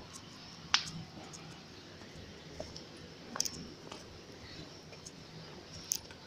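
Three sharp, separate clicks over a steady background hiss, the loudest about three-quarters of a second in and two smaller ones later.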